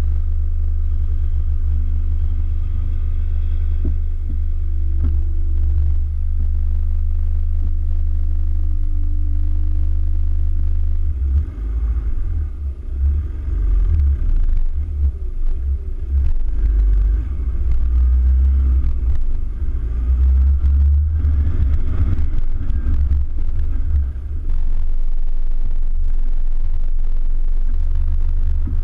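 Toyota Hilux Vigo pickup driving over soft sand dunes: a heavy, low vehicle rumble, steady at first, then choppy and uneven from about a third of the way in.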